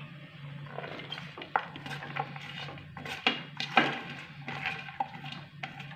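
Chopped onion and coriander leaves being brushed by hand off a plate into a stainless steel mixing bowl, with irregular light taps and clatters of the plate against the bowl.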